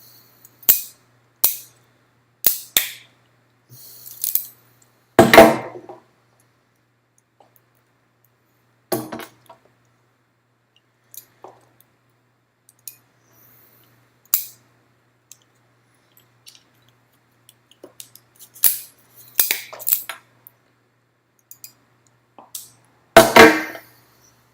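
Sharp clicks and snips of a crimping tool and a cat5 cable being handled while the excess twisted-pair wire is trimmed and fitted to an RJ45 plug. There are two louder knocks, one about five seconds in and one near the end.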